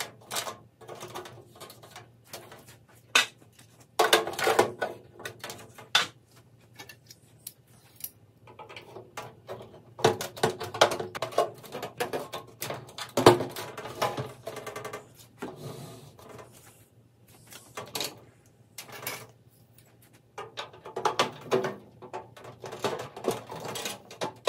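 Flexible plastic drawer-rail strips being bent and fitted into the grooves of a painted sheet-metal parts cabinet: irregular clicks, knocks and rattles of plastic against metal, in bursts with a few sharper knocks and short quiet gaps between.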